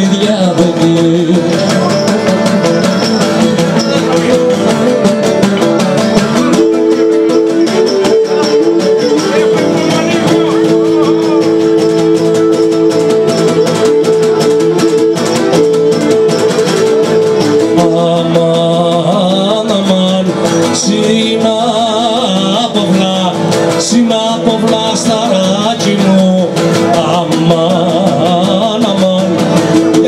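Traditional Cretan music on Cretan lyra and two Cretan laouta: the lyra carries held melody notes over the laouta's plucked rhythmic accompaniment, amplified through PA speakers.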